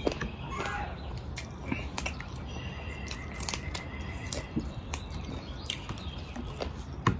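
Close-up eating sounds: a run of short, sharp mouth clicks and smacks with small clicks from stripping leafy greens and picking up rice by hand. The sharpest click comes near the end.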